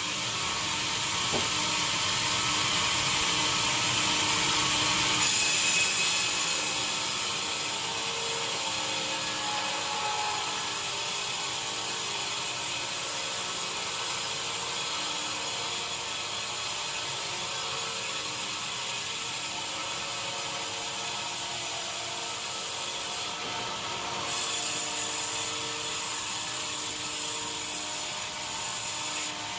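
Sawmill machinery running steadily as it saws wood, a continuous mechanical noise with faint steady tones that shifts abruptly a few times.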